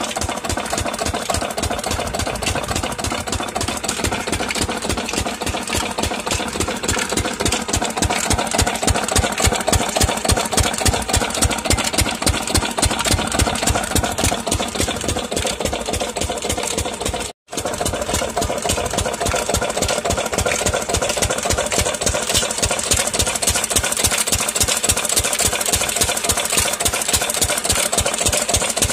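Old single-cylinder diesel pumping-set engine with heavy flywheels running steadily under load, its exhaust beating in a fast, even rhythm as it drives a belt-driven irrigation water pump. The sound cuts out for a moment a little past halfway.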